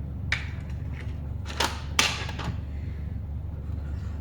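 A few short knocks and clicks from the humidifier's parts being handled, the loudest about two seconds in, over a steady low hum.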